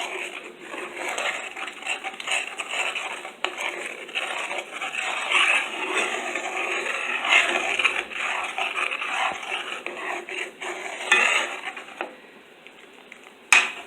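A utensil stirring and scraping around a pot of creamy alfredo sauce, with irregular clinks against the pot. It goes quiet near the end, then one sharp click.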